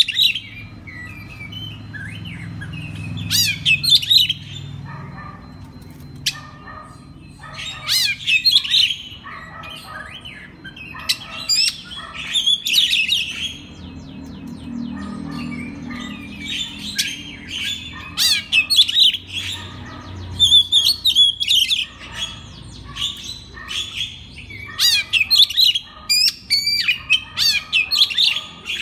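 Oriental magpie-robin (kacer) singing: phrases of rapid whistles, chirps and harsher notes, each a second or two long, repeated with short pauses between, over a faint low hum.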